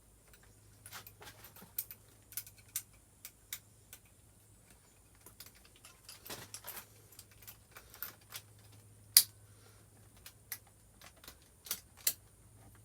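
Irregular light clicks and taps of small tools and parts being handled by hand, a few sharper knocks among them, over a steady low hum.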